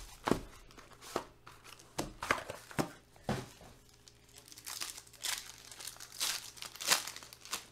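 Plastic shrink wrap being torn off a trading card box, then a foil card pack crinkled and torn open: irregular crackling and rustling bursts, loudest near the end.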